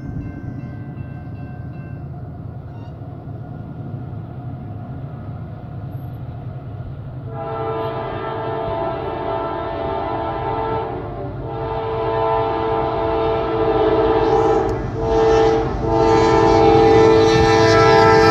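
Freight locomotive's air horn sounding the grade-crossing signal as the train approaches: two long blasts, a short one, then a long one. Under it the diesel rumble of the approaching train grows steadily louder.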